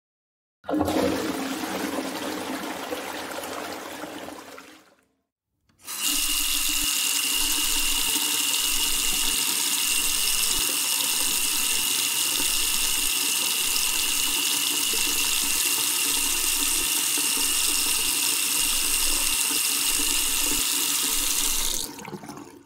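A toilet flushing and fading out, then, after a short pause, water running steadily for about sixteen seconds before it stops near the end.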